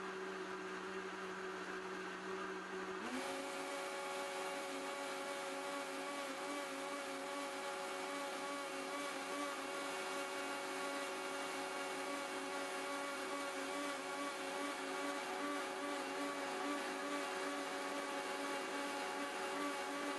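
Bosch VitaBoost MMBH6P6B high-speed blender running, its blades spinning liquid in the jar. About three seconds in, the motor steps up to a higher speed and then runs steady.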